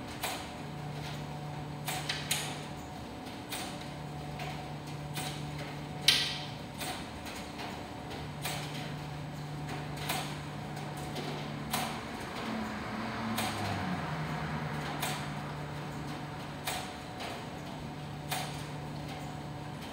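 American Dryer Corp commercial tumble dryers running, with a low hum that cuts in and out every few seconds and irregular sharp clicks and knocks, the loudest about six seconds in.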